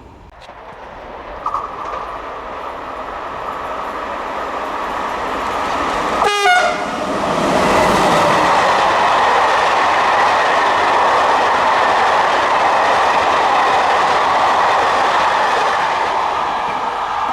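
A train approaching along the main line and passing close by at speed. Its sound builds over the first few seconds, a short horn blast comes about six seconds in, and then the loud, steady rush of wheels on rail carries on as the train goes by.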